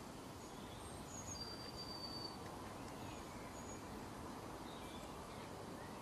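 Faint outdoor ambience: a steady low background rumble with distant small songbirds giving a few thin, high whistled notes, one held for about a second near the start.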